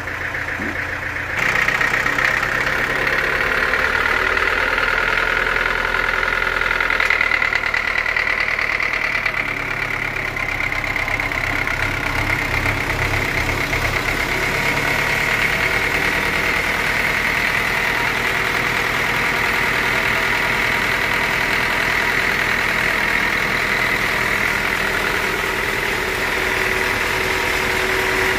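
Band sawmill running steadily: a continuous mechanical hum with a high whine over it, getting louder about a second and a half in.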